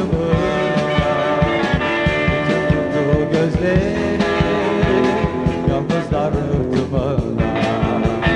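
Rock band playing live in an instrumental passage: electric guitar lines with bends in pitch over bass guitar and a steady drum beat.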